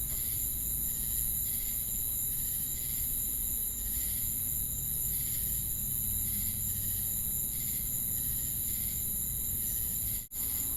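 Insect chorus of crickets and cicadas: a steady high-pitched shrill, with a chirp repeating a little under once a second over it. The sound cuts out briefly about ten seconds in.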